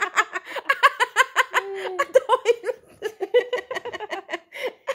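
A person laughing in rapid giggling bursts, breaking off briefly about three seconds in, then laughing again.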